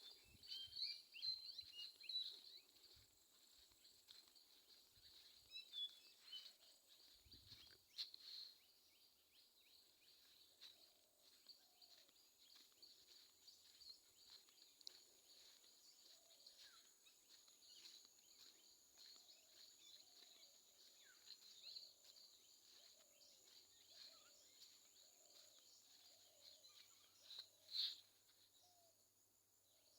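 Faint morning birdsong in woodland: scattered short high chirps and tweets, busiest at the start and with one louder call near the end. Under them runs a steady thin high tone, and from partway through a low short call repeats about once a second.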